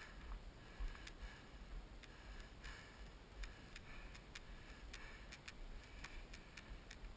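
Faint, irregular ticks and crunches of footsteps on a dirt and gravel trail, over a low wind rumble on the microphone.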